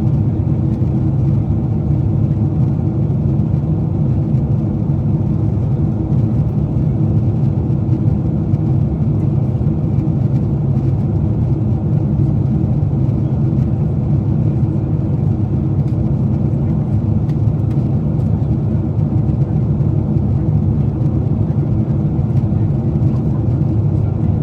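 Steady low drone inside the passenger cabin of a Boeing 747-8 airliner in flight: engine and airflow noise, unbroken, with a faint steady hum over it.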